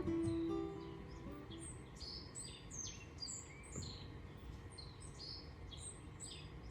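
Birds chirping over and over, short high notes that slide downward, over a low steady outdoor rumble. The last notes of a guitar tune die away at the very start.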